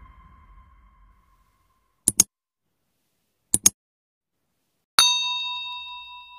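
A music tail fades out, then two quick double clicks about a second and a half apart. A bell-like ding follows, ringing with several tones and slowly dying away: the click-and-bell sound effects of a subscribe-button animation.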